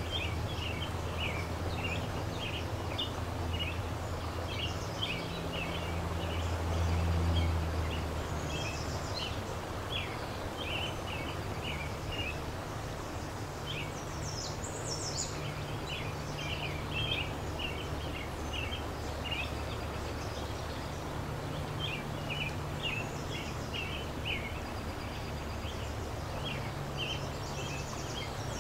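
Steady rush of a fast-flowing river, with small birds chirping in quick clusters of short notes throughout and a higher call about halfway through. A low rumble runs underneath and swells briefly about seven seconds in.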